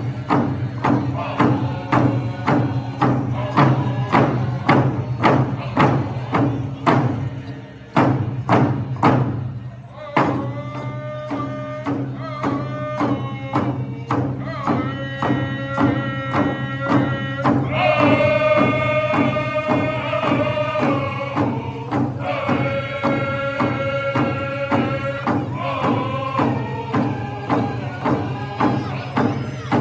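Powwow drum and singers: a large drum struck in a steady, even beat under chanted singing. There is a short lull about eight seconds in, after which the drumming resumes and the singers hold long, high-pitched lines.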